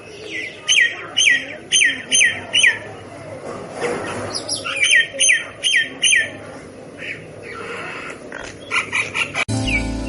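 Myna calling: short, sharp down-slurred squawks repeated about twice a second in runs of four or five, with brief pauses between runs.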